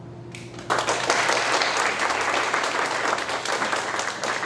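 Audience applauding, breaking out suddenly a little under a second in.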